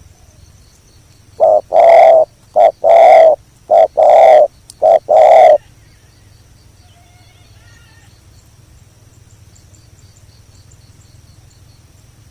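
Spotted dove cooing loudly close by: one phrase of four coos, each a short note followed by a longer one, ending about halfway through. A faint high, evenly pulsing insect chirp runs underneath.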